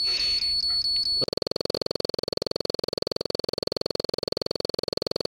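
Short regular electronic beeps over a steady high tone, like a bomb-timer sound effect. About a second in they cut over to synthesizer background music with a fast, even pulse, which stops abruptly just after the end.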